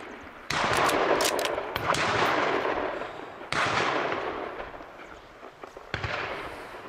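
Three hunting gunshots fired at a running wild boar, about three seconds apart: half a second in, three and a half seconds in and near the end. Each is followed by a long rolling echo that dies away over two to three seconds, and the last shot is fainter.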